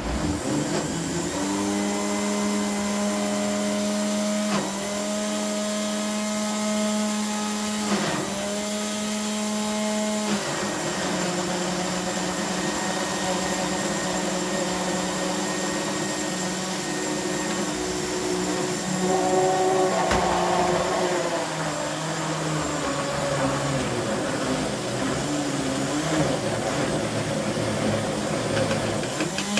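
Countertop electric blender running, puréeing fresh amora berries for jam, with brief breaks about 4.5 and 8 seconds in. About 10 seconds in the steady motor note gives way to a lower, wavering one, mixed with tap water running into the sink.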